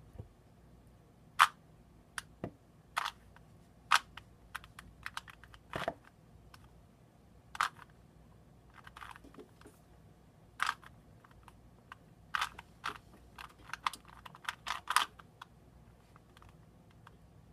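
3x3 Rubik's Cube being turned by hand, its plastic layers clicking irregularly with each turn. The clicks come thicker and faster in a flurry about two-thirds of the way through.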